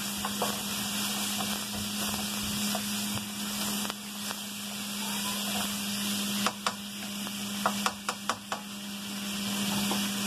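Sliced potatoes and bacon sizzling in a skillet as they fry, with a steady low hum underneath. A spatula knocks and scrapes against the pan several times in quick succession about two-thirds of the way through.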